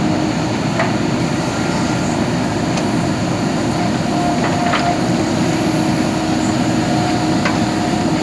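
Diesel engine of a JCB backhoe loader running steadily under work, with a few light clanks and a brief whine twice.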